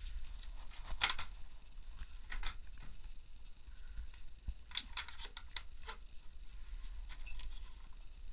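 Scattered light knocks and clicks of someone moving about on and handling the wooden boards of a treehouse, the sharpest about a second in, over a steady low rumble.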